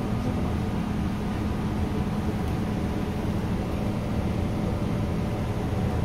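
Steady low drone of a city bus heard from inside the passenger cabin: engine and running noise that stays even throughout.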